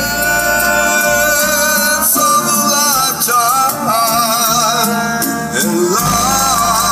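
A song with a singing voice and guitar played loud over a car audio system with heavy bass. The deep bass drops out a little over two seconds in and comes back in strongly about six seconds in.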